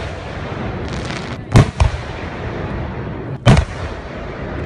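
Aerial firework shells bursting: a loud bang about a second and a half in, a smaller report just after it, and another loud bang about two seconds later.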